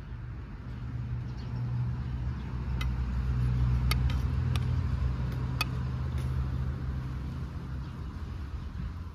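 A motor vehicle's engine passing, its low rumble swelling to a peak a few seconds in and then fading. A few light metal clinks of a slotted spoon against the pot fall in the middle.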